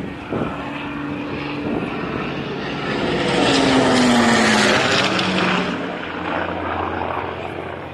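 Hawker Hurricane's Rolls-Royce Merlin V12 engine and propeller as the fighter passes low overhead. The drone swells to its loudest about halfway through, its pitch dropping as it goes past, then fades.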